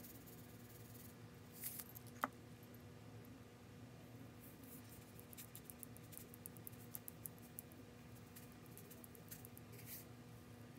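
Very faint scattered ticks and light scratching as sand is sprinkled from a paper cup onto wet resin in a mold and worked with a wooden stick, over a low steady hum. There is one sharper tick about two seconds in.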